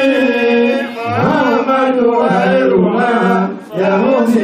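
Male voices chanting a melodic religious chant through microphones and a loudspeaker, with long held notes and a short break about three and a half seconds in.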